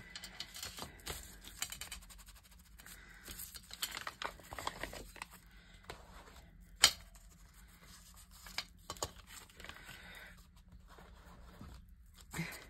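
Paper rustling and crinkling as a creased sheet is handled, unfolded and smoothed flat by hand, with one sharp click about seven seconds in.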